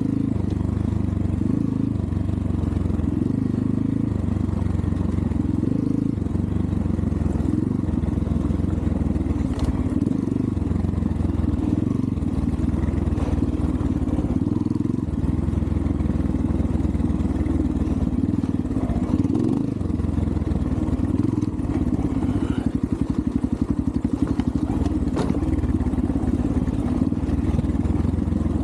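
Xpro Templar X 250cc dirt bike engine running as the bike is ridden over rough trail, the throttle coming on and off, with an occasional sharp knock or clatter.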